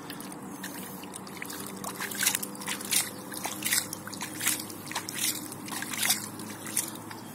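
Shallow water sloshing and splashing in a dozen or so short, irregular splashes as a carp held by hand is let go, the fish and the hand stirring the surface. The splashes come mostly from about two seconds in.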